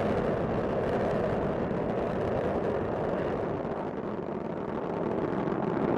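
Steady noise of Space Shuttle Discovery's solid rocket boosters and main engines during ascent, dipping a little about two-thirds of the way through.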